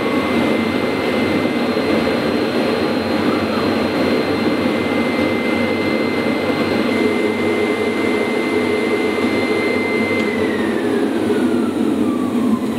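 AXYZ CNC router running: a steady high whine over a loud, even rushing machine noise. About ten seconds in, the whine starts to fall steadily in pitch, as a spindle motor does when it winds down.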